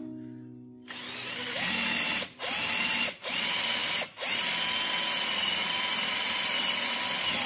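Cordless drill boring into a wooden plank with a multi-purpose bit: the motor spins up with a rising whine about a second in, stops and restarts three times in quick succession, then runs steadily, cutting very smoothly.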